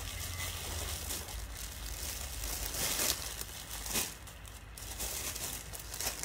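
Clear plastic garment bags crinkling and rustling as clothes are handled, with sharper crackles about three and four seconds in.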